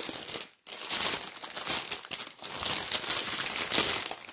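Crinkling plastic wrap around a bundle of diamond painting drill bags being handled and pulled at, with a brief pause about half a second in.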